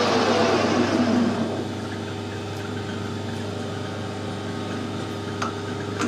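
A metal-turning lathe's spindle and gearing winding down after switch-off, its whine falling in pitch and fading over the first second and a half, leaving a steady low hum. A couple of light metallic clicks near the end as a drill chuck is offered up to the freshly turned taper.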